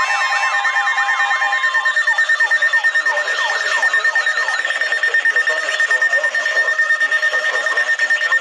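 Weather radio alert alarms sounding together. A rapid falling siren-like tone repeats several times a second, over a steady high beep tone. A lower steady alert tone cuts off about a second and a half in.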